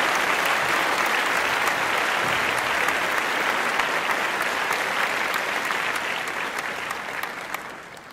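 Crowd applauding, steady clapping that fades out over the last second or so.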